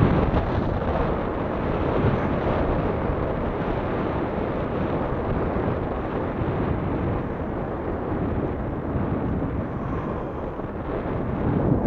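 Wind buffeting the microphone of a camera riding on a moving recumbent bike: a steady, low rushing noise that eases a little near the end, then swells again.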